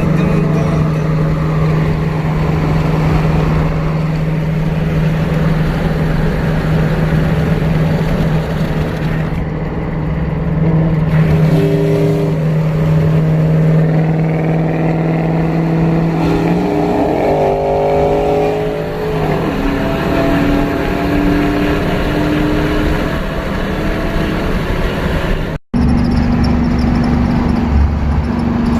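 Cammed V8 pickup engine running under way with a steady drone. About two-thirds through, its pitch steps and slides as the revs change, and near the end the sound drops out for an instant.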